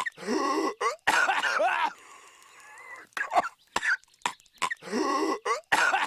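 Patrick Star, the cartoon starfish, coughing: a few short sharp hacks, then a run of longer strained, voiced coughs. The same short coughing clip repeats, heard twice.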